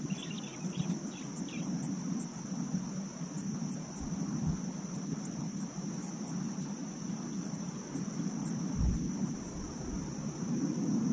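Steady high drone of insects, over a low rumble like distant traffic. A few dull thumps come about four seconds in and again near nine seconds, and some brief chirps in the first second or so.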